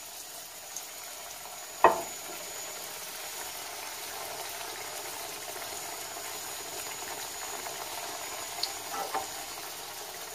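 Heart-shaped pişi dough frying in hot oil in a pan, a steady sizzle, with one sharp knock about two seconds in.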